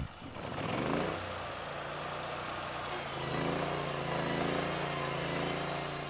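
The portable band sawmill's 23 HP Briggs & Stratton engine revs up over about the first second, then runs steadily at high speed under load while the band blade cuts through a log, with a steady hiss over the engine note.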